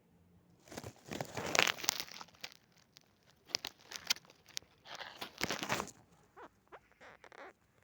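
A loud crinkling, scraping creak in several bursts: one long one in the first couple of seconds, a shorter one about halfway, another near the end, then a few faint clicks.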